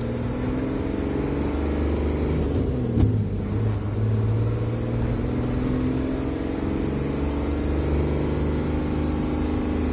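Isuzu FVR truck's six-cylinder diesel engine heard from inside the cab, pulling up through the gears. The engine note rises, and a knock about three seconds in comes with a drop in pitch as a gear is changed. The note then climbs again for several seconds and falls away near the end.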